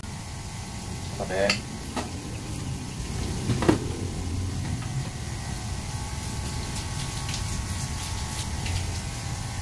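Shower-hose water spraying steadily onto a wet Maine Coon's fur as it is rinsed. A short rising meow from the cat comes about a second in, and a sharp knock a few seconds in.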